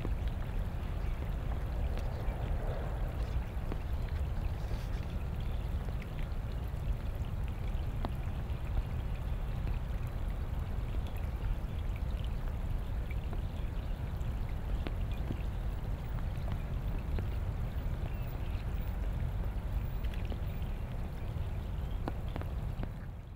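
Rain falling on a pond's surface: a steady hiss with scattered drop ticks over a low rumble, fading out at the end.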